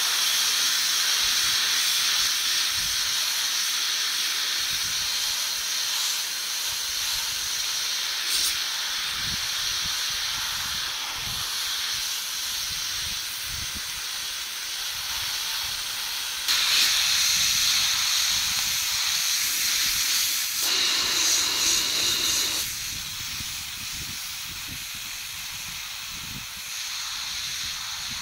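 Homemade sandblaster running: a steady hiss of compressed air and abrasive from the nozzle as it blasts rust off a metal plate. It grows louder for several seconds past the middle, then eases to a quieter hiss near the end.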